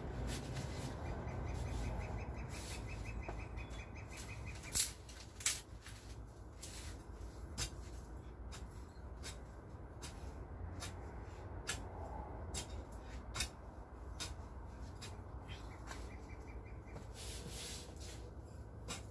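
Long-handled garden hoe chopping into loose, moist bed soil: irregular sharp strikes and scrapes, the loudest two about five seconds in.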